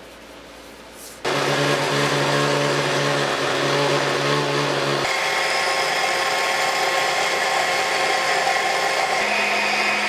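Countertop blender switching on about a second in and running steadily, puréeing parsley, basil, garlic, red onion and olive oil into pesto. Its tone changes abruptly about halfway, the deeper hum dropping out and a higher whine coming in.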